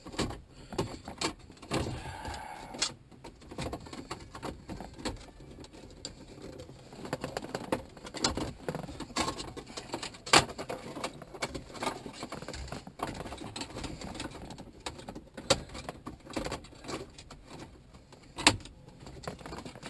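Irregular clicks, rattles and knocks of hardware and wiring being handled and fitted into a car dashboard during a stereo install, with a sharper knock about halfway through and another near the end.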